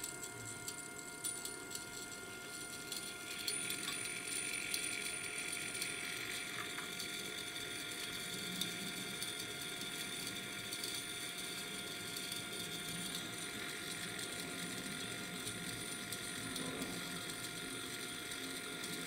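Small two-phase AC servo motor of a Smiths 203SUM1 aneroid height sensor running and driving its high-reduction gear train: a whirring with fine gear ticking over steady electrical hum tones, getting louder about three seconds in. This is the servo loop chasing the LVDT null after power-up.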